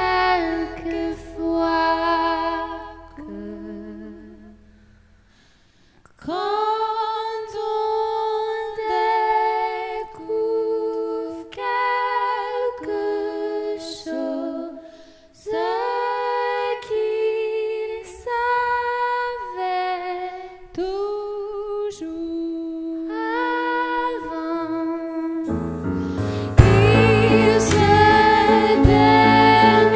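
Live alt-folk band: the music dies away, then a woman's voice sings a slow line almost alone. Near the end the full band comes in loudly underneath her.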